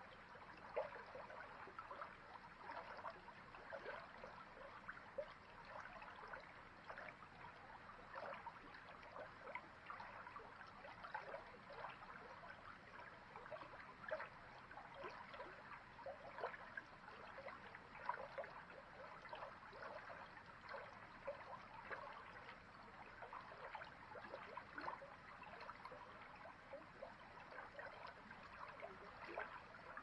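A shallow creek running over a stony bed in a faint, steady babble, dotted with many small irregular plinks and splashes.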